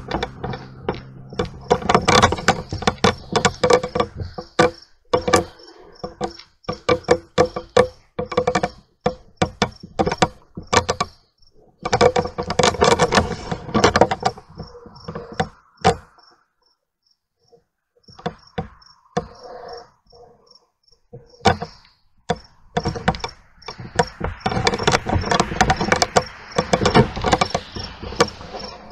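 Crickets chirping steadily, under loud, irregular clicking and choppy crackling bursts. All sound drops out for about two seconds a little past the middle.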